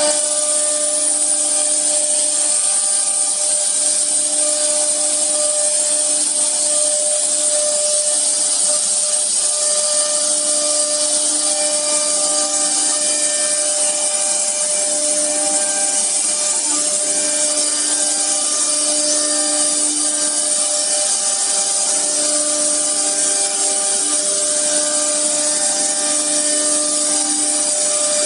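CNC router's 4.5 kW HQD spindle running and cutting, a steady loud hiss with a constant whine. A lower hum comes and goes every few seconds.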